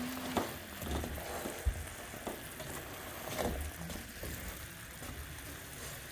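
Chocolate no-bake cookie mixture of butter, milk, sugar and cocoa bubbling and sizzling at a full rolling boil in a saucepan as it is stirred, with a few sharp knocks in the first half.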